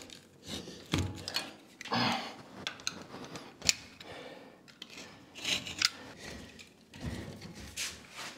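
Utility knife blade scoring and cutting through Fermacell fibre-gypsum board, a series of short scraping strokes at an uneven pace, with a sharp click a little past halfway and a dull knock near the end.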